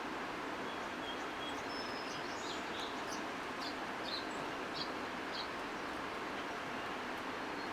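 Short, high bird chirps and whistles, several in a row over the first few seconds, over a steady outdoor noise.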